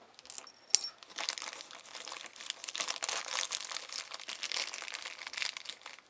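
Clear plastic packaging crinkling as it is handled, holding small line-tap parts, with an irregular crackle and one sharp small click about a second in.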